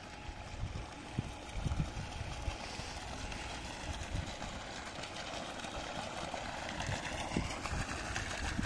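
Jet of water from a pipe outlet splashing steadily onto a pond's surface, with irregular low gusts of wind on the microphone.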